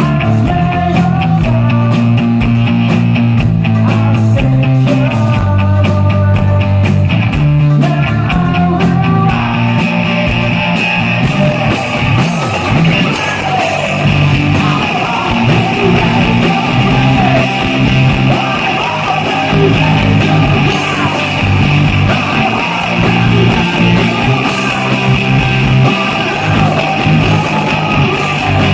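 Live rock band playing, with electric guitar over bass and drums. The driving drum beat drops back about nine seconds in, giving way to a sustained passage with gliding melodic lines.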